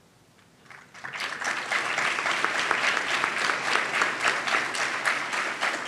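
A large audience applauding: dense clapping that starts about a second in, after a brief hush.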